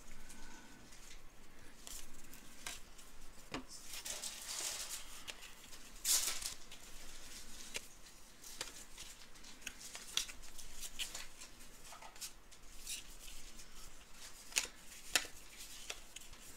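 Trading-card packs and cards being handled and opened: scattered small clicks, brief rustles and swishes of wrappers and card stock, fairly faint, with a sharper swish about six seconds in and a few crisp clicks near the end.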